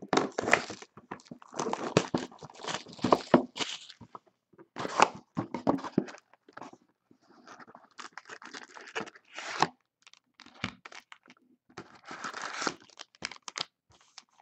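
Repeated bursts of tearing, crinkling and scraping as a sealed Panini Prizm Jumbo hobby box of basketball cards is ripped open. Near the end, its silver foil packs rustle as they are pulled out.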